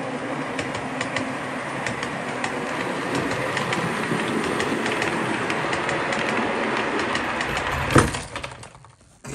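OO gauge model train, a steam locomotive hauling Pullman coaches, running along the track: a steady rumble of wheels on rail, dotted with irregular clicks over the rail joints. A sharp knock about eight seconds in, after which the sound falls away quickly.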